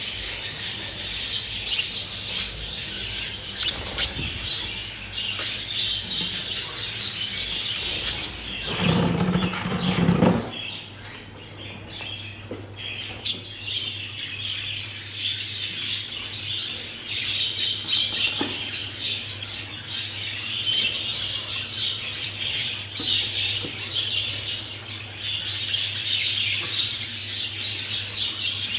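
Budgerigars chattering and chirping continuously, with many short clicks and wing flaps. A loud low rustling noise runs for about two seconds near nine seconds in.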